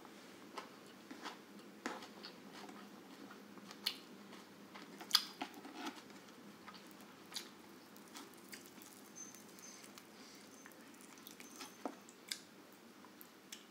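Eating sounds: chewing with irregular small wet clicks and smacks, and fingers picking at rice and grilled chicken on the plate. The sharpest click comes about five seconds in.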